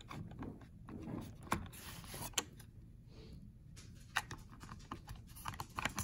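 Handling noise of a shoe-mount microphone being slid and fiddled onto a camcorder's accessory shoe: scattered sharp plastic clicks and taps, with a short scraping rustle about two seconds in.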